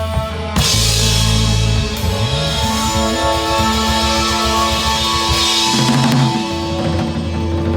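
A band playing live, with a drum kit keeping a steady beat under sustained guitar and bass notes.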